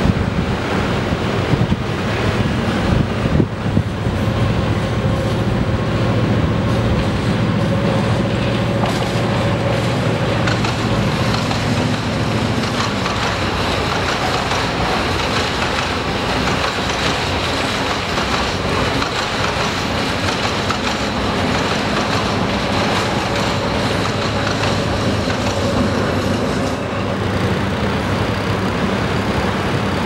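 Red diesel passenger train running along a seaside track, a steady rumble of the train and its wheels on the rails with an engine hum underneath.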